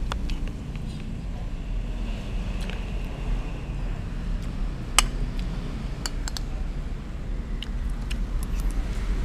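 A metal spoon clicking and tapping against a plastic bowl as food is scooped up: a handful of sharp clicks, the loudest about five seconds in. A steady low rumble runs underneath.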